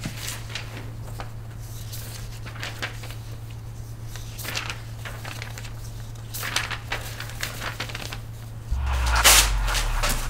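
Sheets of drawing paper rustling as they are leafed through, then crumpled by hand in a louder crackling burst near the end. A steady low hum runs underneath.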